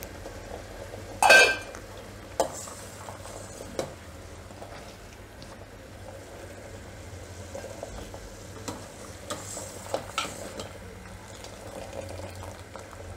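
Sugar syrup boiling with a steady fizz in a stainless steel pot, cooked on because it has not yet turned sticky, while a steel ladle is stirred in it. The ladle knocks against the pot with one loud ringing clink about a second in and a few lighter knocks later.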